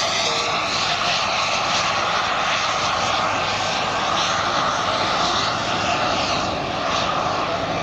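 KingTech K210 gas turbine of a 1/3.5 scale RC BAE Hawk jet running steadily as the model flies a low pass, a loud continuous jet rush.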